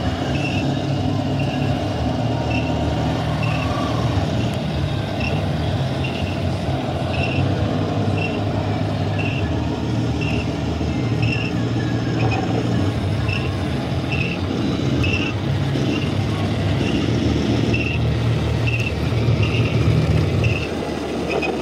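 1/10-scale RC Sturmtiger model tank running on a dirt track with a steady low rumble. The rumble swells near the end and then cuts off. A short high beep repeats about once a second over it.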